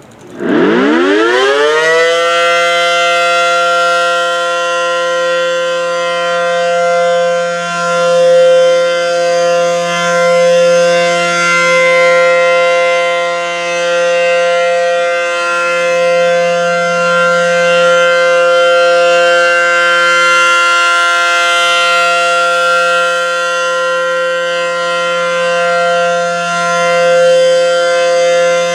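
ACA Allertor 125 electromechanical outdoor warning siren winding up from silence to full pitch within about two seconds, then holding a steady tone for the alert signal. Its loudness swells and dips gently while the pitch stays constant.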